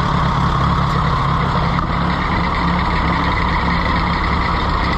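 Case VAC tractor's four-cylinder gasoline engine running, freshly revived after long sitting and starting to run worse.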